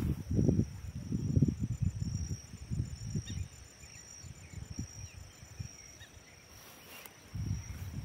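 Insects trilling steadily at a high pitch, with low rumbling buffets in the first three seconds and again near the end.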